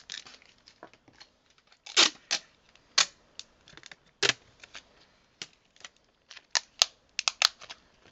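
Adhesive tape being pulled and torn while a phone is handled and pressed onto a desk: an uneven string of sharp clicks and short rips, the loudest about two, three and four seconds in and a pair near the end.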